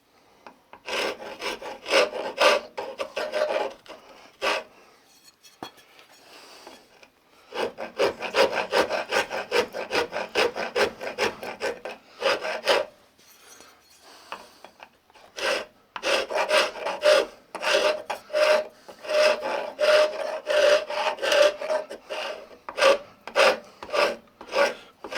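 A hand file rasping the wooden axe handle with quick back-and-forth strokes, in three runs separated by short pauses, shaping the handle to fit the axe head.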